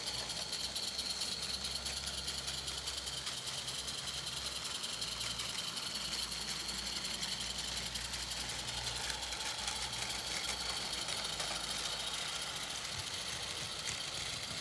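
A 16 mm scale live steam garden locomotive running with a train in tow, its exhaust beats coming as a fast, even chuffing, over a steady high hiss.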